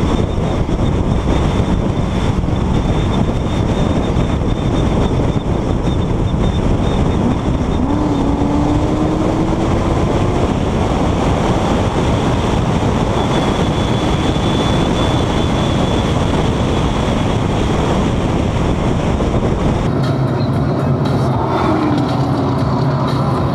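Chevrolet Corvette cruising at highway speed: steady road and wind noise with a low engine drone, heard from inside the cabin. About 20 s in the sound turns darker, with a steadier low hum, as the V8 runs at low revs in sixth gear.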